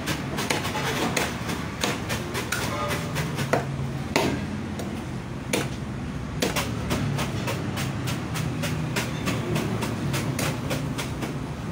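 Repeated chopping knocks of a blade cutting through fish on a cutting board, several a second at uneven spacing.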